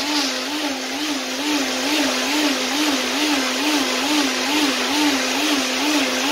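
Willsense personal blender's motor running, blending a jug of thick green smoothie filled to the brim. It is a steady whirring hum whose pitch wobbles up and down about three times a second. This is a last run to break down the remaining bits.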